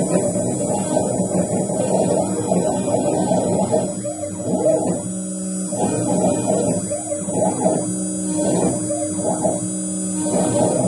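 CNC router cutting a pocket in wood with a small bit: a steady electric hum whose tones drop out and come back several times in the second half.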